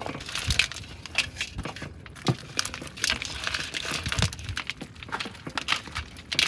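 Irregular rustling and crinkling with scattered light knocks and clicks.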